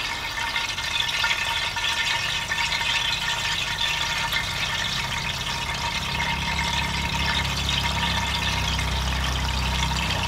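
Banana-leaf-wrapped karimeen fish parcels sizzling as they are laid into hot coconut oil in a wide pan over a wood fire: a steady hiss, with a low rumble building from about four seconds in.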